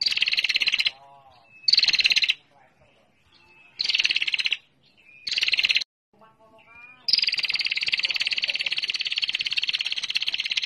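Female prinia (prenjak) lure call: a rapid, high, ticking trill given in four short bursts, then one long unbroken trill from about seven seconds in. Fainter, lower chirps sound in the gaps between bursts.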